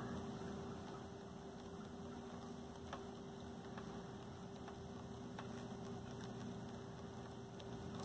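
Faint steady hum over a light hiss, with a few soft isolated ticks.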